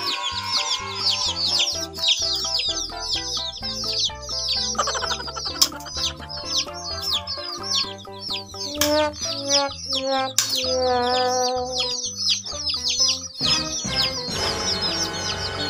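A group of baby chickens peeping rapidly and continuously, high-pitched, over background music.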